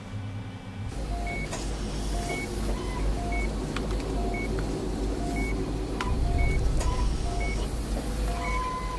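Laboratory equipment in a brain-scanning rig: a low steady hum starting about a second in, with short electronic beeps about once a second, each a lower blip followed by a higher one, and a longer tone near the end.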